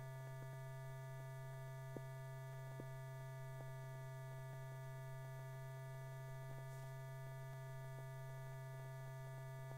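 Steady electrical hum with a stack of fainter higher tones above it and a few faint scattered ticks: background mains hum on an old film soundtrack.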